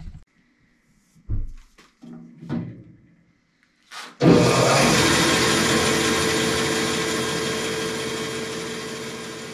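Bandsaw cutting through a thick rubber block: a loud, steady saw noise that starts suddenly about four seconds in and slowly grows quieter. Before it, a few soft handling thumps.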